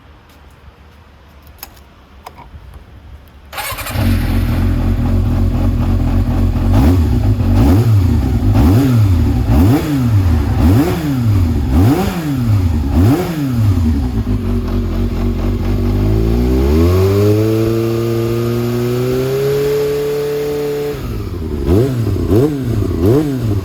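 Yamaha XJR400R's air-cooled inline four through a WR'S slip-on carbon silencer. It starts up about three and a half seconds in and is blipped repeatedly, about once a second. From about sixteen seconds in it is held at a steady higher rev for about five seconds, then drops back to quick blips near the end.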